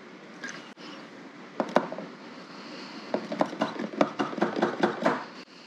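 Light plastic knocks and clicks as the probe of a pen-type pH meter is worked around in a small plastic sample cup of vinegar, tapping against the cup. There are two sharp knocks early on, then a quick run of about five clicks a second through the second half.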